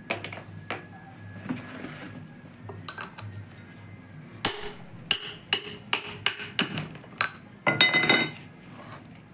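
Hammer blows, metal on metal, knocking a broken front wheel bearing out of a motorcycle wheel hub: a few scattered knocks, then a quick run of about nine sharp, ringing strikes, and a longer ringing clatter near the end. The bearing is badly broken and in pieces, the cause of the wheel's wobble.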